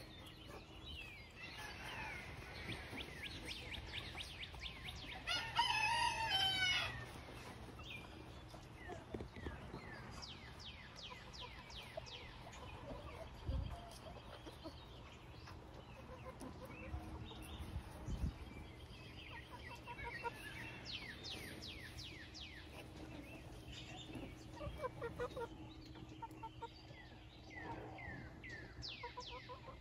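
Backyard chickens calling: a rooster crows once about five seconds in, over hens clucking and many short high chirps.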